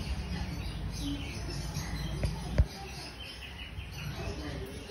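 Faint high chirps over a steady background noise, with a single sharp knock about two and a half seconds in.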